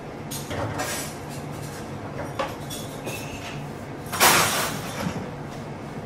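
Commercial kitchen background: a steady low hum with scattered light clinks and knocks of utensils and dishes, and a brief, loud, noisy clatter about four seconds in.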